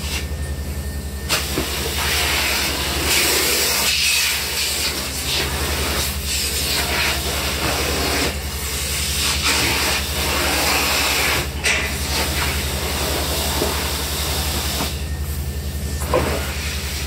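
Large industrial vacuum hose sucking up spent blasting grit from the floor: a loud rushing hiss over a steady low machine drone. The hiss drops away briefly near the start and again near the end.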